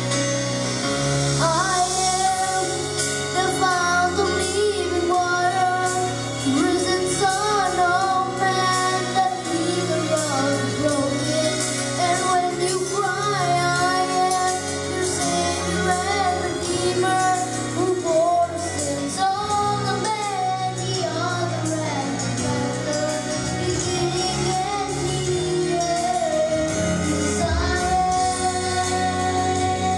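A single high voice singing a melody over instrumental accompaniment with steady bass notes.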